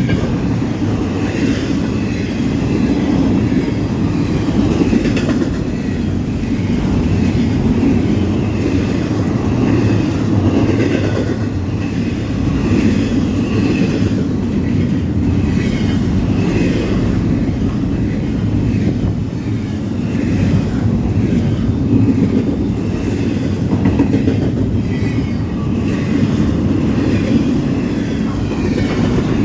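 Norfolk Southern freight train rolling past, a steady loud rumble of cars with wheels clicking over the rail joints.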